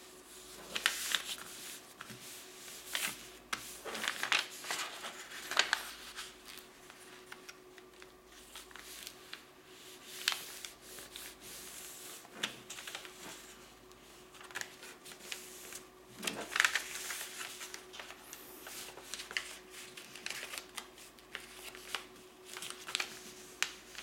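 Sheet of white printer paper rustling and being creased by hand as it is folded on a table, in short, irregular swishes.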